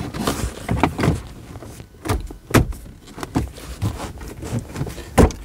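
Plastic interior trim panel being fitted against the centre console: a series of irregular knocks and clicks as its hooks are guided in and its clips seat. The loudest knocks come about two and a half seconds in and again near the end.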